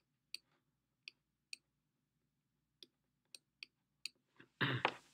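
Sharp, isolated clicks, about eight of them at uneven intervals, from a stylus tapping on a pen tablet while units are handwritten. Near the end a person's voice briefly starts.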